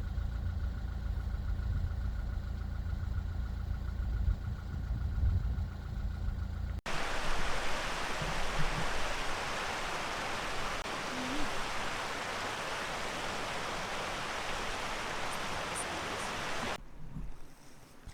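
A steady low mechanical hum, like an engine running, for about seven seconds. Then a sudden cut to an even rushing noise, which drops away to a much quieter background near the end.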